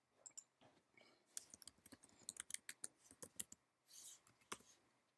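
Faint computer keyboard typing and mouse clicks: a quick, irregular run of clicks through the middle, then a short burst of noise and a single click near the end.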